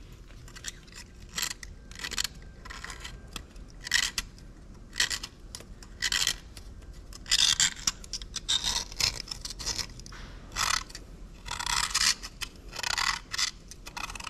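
A small steel tool scraping in short, irregular strokes in the O-ring groove at the bottom of a Farmall F14 engine's cylinder bore. It is picking out the remains of an old rubber O-ring that has disintegrated and is held in by corrosion. The scrapes grow louder and longer in the second half.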